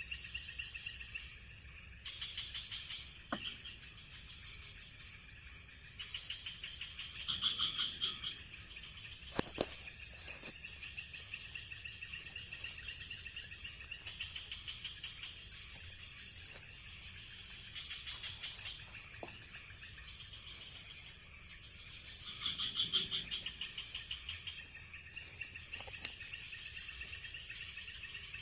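Night chorus of tropical forest insects: a steady high-pitched drone with crickets chirping in rapid pulses, swelling louder twice, about eight and twenty-three seconds in. A few sharp clicks sound through it.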